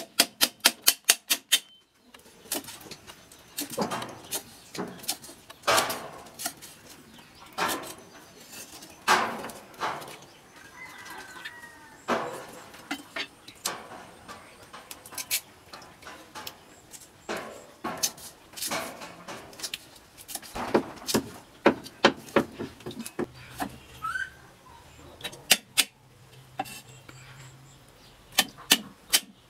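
Metal cleaver chopping ginger on a wooden chopping block: a fast run of knife strikes at the start, then scattered chops and scrapes. A bird chirps briefly twice.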